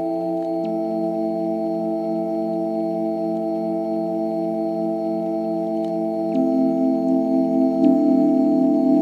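Yamaha Tenori-on playing a held chord of steady electronic tones as buttons on its grid are pressed. New notes join about a second in and again around six and eight seconds, and it grows louder near the end.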